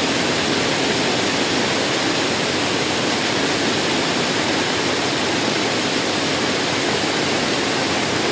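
Steady, even rush of water pouring over a dam, like a man-made waterfall.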